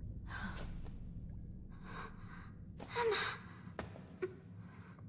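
A person gasping: three breathy gasps, the third the loudest with a short voiced catch in it, over a steady low hum. Two sharp taps follow near the end.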